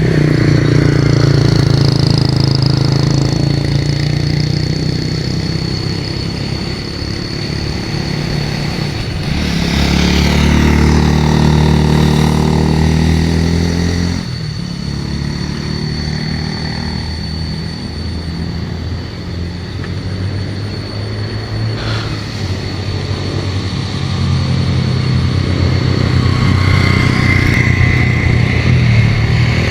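Road traffic going by: motorcycle and vehicle engines rising and fading as they pass, with a louder, deeper-sounding vehicle passing about ten seconds in. A thin steady high-pitched tone sounds through the first two-thirds.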